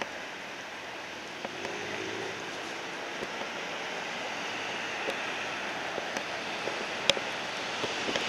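Steady road-traffic noise from car tyres and a B2-class tram moving off along the street. It grows a little louder toward the end, with a few faint clicks.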